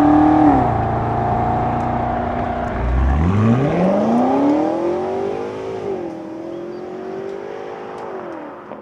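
BMW G90 M5's twin-turbo V8 running through a Scorpion aftermarket exhaust, revving. The pitch drops about half a second in, climbs steeply from a low note to a high one around three seconds in, dips briefly near six seconds, then holds and slowly falls toward the end.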